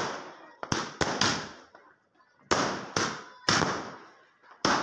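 Aerial firework shells bursting overhead in quick succession: about eight sharp bangs, irregularly spaced, each echoing briefly as it fades.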